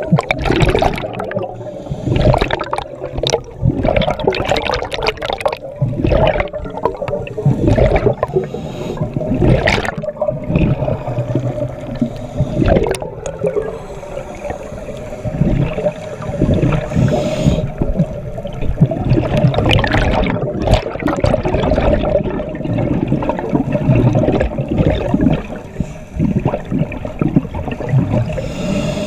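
Water gurgling and bubbling as heard underwater, with divers' exhaled air bubbles from their scuba regulators coming in irregular surges and sharp pops. A steady hum runs underneath.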